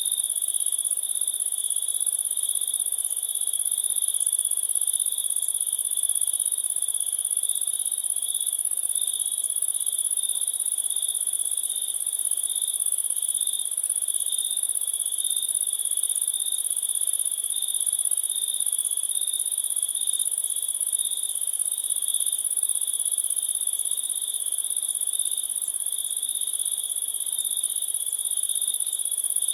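Chorus of crickets chirping without pause: a high, steady trill over a lower, evenly pulsing chirp.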